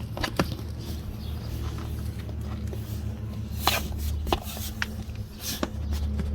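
Scattered clicks and rubs of plastic and rubber door trim being pressed down by hand onto a door sill protector, over a steady low hum.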